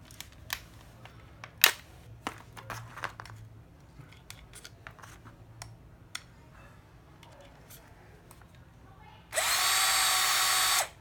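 Ryobi 7.2 V cordless drill being handled, with a few sharp clicks, the loudest near the two-second mark. About nine seconds in, its motor runs at a steady whine for under two seconds, then stops.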